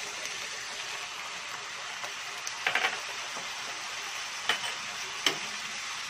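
Vegetables and pineapple pieces sizzling in a frying pan while a wooden spatula stirs them, with a quick cluster of about three knocks near the middle and two single sharper knocks later, as the spatula hits the pan.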